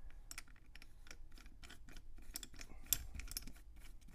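Irregular light clicks and clinks of small seat belt mounting hardware being handled and fitted, with one sharper click just before three seconds in.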